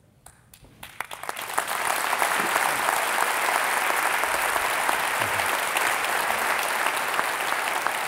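Audience applauding. After a brief hush it starts about a second in, builds quickly and holds steady.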